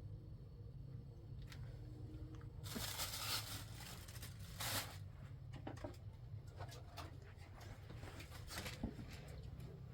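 Rustling and crinkling handling noise, with two louder rustles about three and five seconds in and scattered light clicks and knocks, over a steady low hum.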